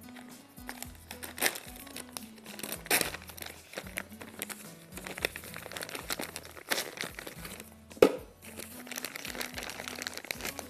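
Plastic packet of frozen strawberries crinkling and rustling as it is handled, with scattered sharp clicks and a loud knock about eight seconds in. Soft background music with a repeating low bass line runs underneath.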